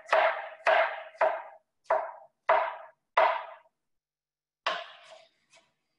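Chef's knife chopping through tomato onto a wooden cutting board: six sharp, even strokes a little over half a second apart, then two lighter knocks about five seconds in.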